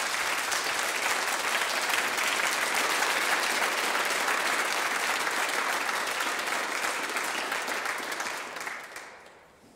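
A class of students in a hall clapping, the applause steady and then dying away near the end.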